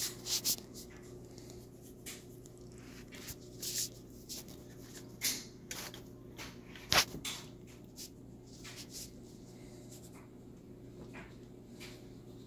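Cat fur brushing and rubbing against the phone's microphone as the cat pushes into it: irregular short rustles, with one sharp knock about seven seconds in, over a steady low hum.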